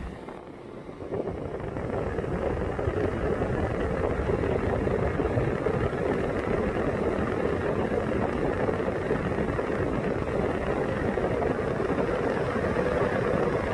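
Opel Meriva 1.6's engine running steadily, growing louder about a second in and then holding even.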